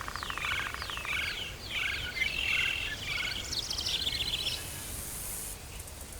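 Birdsong in tropical forest: a quick series of varied chirps and trills, buzzy at first, ending about four and a half seconds in. A brief high hiss follows near the end, over a steady low rumble of ambient noise.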